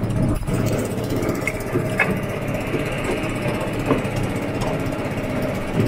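Motor of a small wooden lake boat running at a steady pitch while under way, with a few faint ticks scattered through it.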